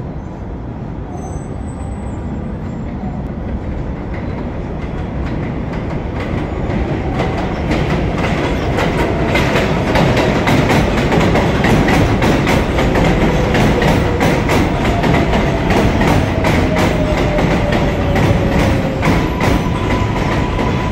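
New York City Subway R142A train pulling into an elevated station. Its rumble grows louder over the first several seconds, then the cars pass close with rapid clicking of wheels over rail joints and a whine falling in pitch as it slows, and a steady high tone comes in near the end.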